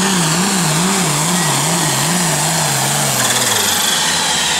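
Turbocharged Farmall tractor's diesel engine running under full load as it pulls a weight-transfer sled. Its pitch wavers up and down about two to three times a second, then drops a little past three seconds in as the tractor slows at the end of the pull.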